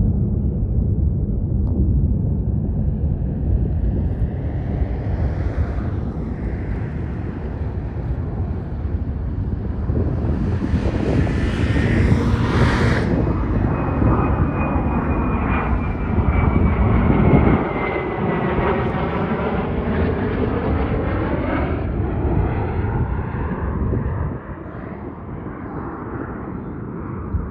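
Fighter jet passing low overhead on approach, with a continuous jet engine roar. About ten seconds in a high whine peaks, then falls steadily in pitch as the jet goes by. The roar drops off near the end.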